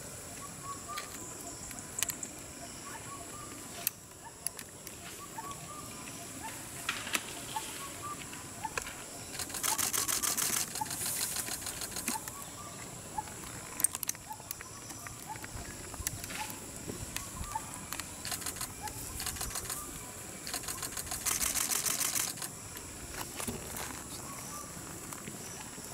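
Forest ambience: a steady high insect drone with a short chirp repeating. Twice there is a louder, rapidly pulsing buzz lasting about two seconds, and a few sharp clicks are heard.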